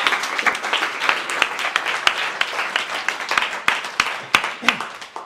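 Audience applauding, a dense patter of clapping that thins and dies away near the end.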